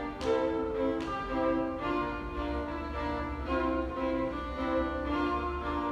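Violin and cello playing together in bowed, held notes that change about twice a second. The passage is likely a demonstration of two rhythmic subdivisions of 6/8 clashing.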